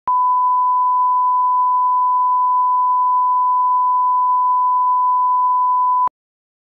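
Steady, loud single-pitch test tone played with colour bars, cutting off suddenly about six seconds in.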